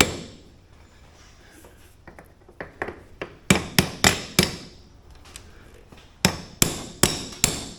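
Hammer blows on metal: a hard blow at the start, a few light taps, then two quick runs of four or five blows, each with a short metallic ring.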